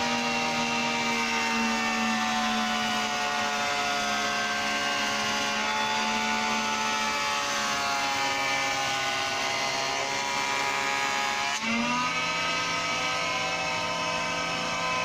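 Surface planer running while a wide board is fed over its cutter block: a steady machine whine whose pitch sags slowly under the cut. About twelve seconds in the pitch rises quickly back up, as the cut comes off the cutters.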